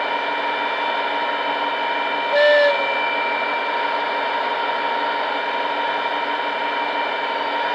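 DCC sound decoder in a Bachmann Class 57 model locomotive playing the diesel engine idling steadily through its small speakers, with one short horn toot about two and a half seconds in.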